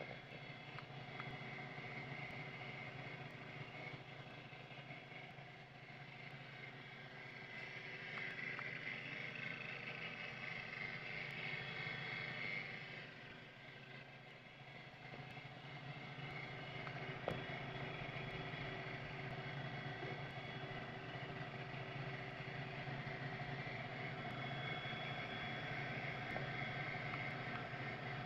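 Cooling fans of a partly dismantled DLP projector running: a faint steady whirring hum with a few constant tones, and a single sharp click about seventeen seconds in.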